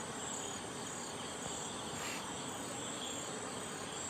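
Crickets chirping in a steady night chorus, high pulsing chirps repeating evenly.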